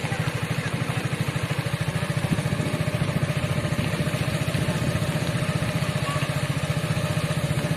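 A vehicle's engine running at low speed, heard from on board, with a rapid, even low throb.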